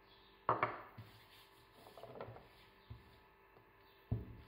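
Faint kitchen handling: a couple of sharp clicks, then light rubbing as oil is spread over a silicone baking mat, and a sharper knock near the end as a metal mixing bowl of dough is lifted and tipped.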